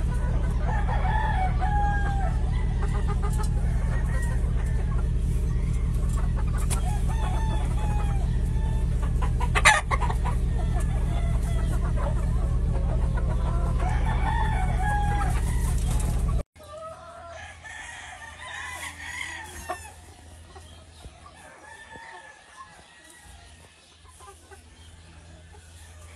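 Gamefowl roosters crowing and hens clucking over a steady low rumble. About two-thirds of the way in the rumble cuts off abruptly, leaving quieter crowing and clucking.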